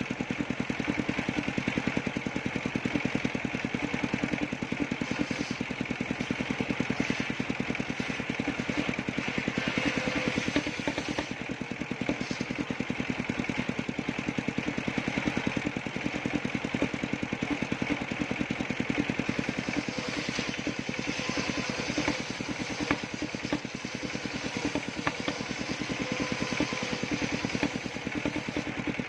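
Engine of a circular-saw sawmill machine running steadily at an even speed, with a fast regular firing pulse.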